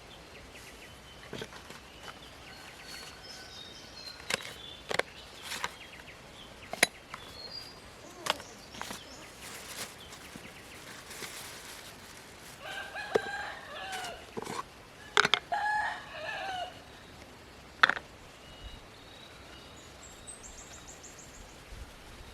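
A rooster crowing twice, each crow about one and a half seconds long, a little past the middle. Scattered sharp clicks and knocks come before and after, two of them louder than the crows, with small bird chirps in between.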